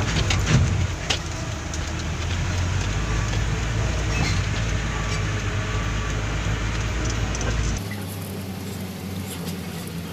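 Mitsubishi Fuso 6x4 dump truck's diesel engine running, heard from inside the cab, with knocks and rattles as the truck rides over a rough gravel road. About eight seconds in, the deep low rumble cuts out abruptly, leaving a thinner, hissier sound.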